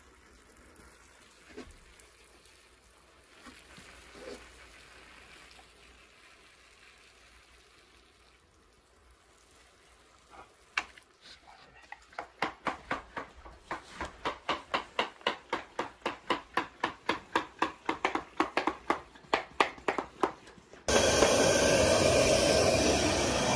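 Faint at first, then from about halfway a fast run of rhythmic strokes, about three or four a second, growing louder. Near the end a carpet extraction machine's vacuum cuts in, loud and steady.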